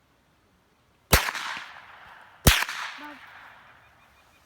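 Two rifle shots about a second and a half apart, each a sharp crack followed by an echo that fades over a second or more.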